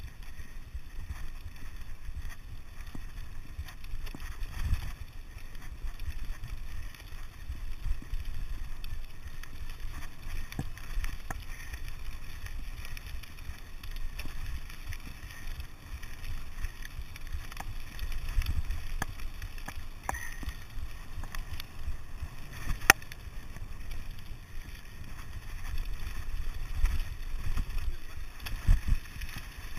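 Mountain bike rolling fast down a rough gravel track: a steady low rumble of tyres on gravel and wind buffeting the microphone, with scattered sharp clicks and knocks from the bike over bumps, the loudest one about two-thirds of the way through.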